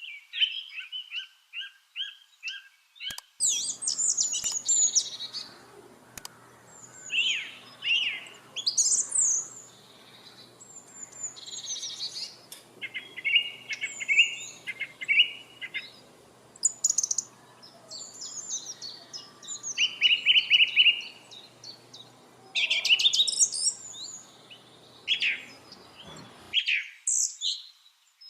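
Lovebirds chirping: a busy string of high, sharp chirps and whistles, several calls overlapping, with runs of quick repeated notes. A faint background hum comes in after about three seconds and cuts off near the end.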